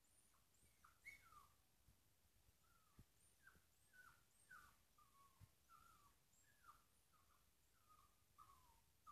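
Dog whining with excitement: a faint run of short, high whimpers, each falling in pitch, about two a second.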